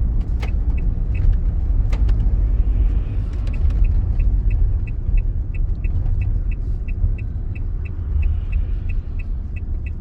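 Opel Movano 2.3 biturbo diesel engine pulling under load as the van accelerates from low speed, heard from inside the cab as a heavy steady rumble. A light, even ticking runs over it at about three ticks a second, with a couple of sharper clicks in the first two seconds.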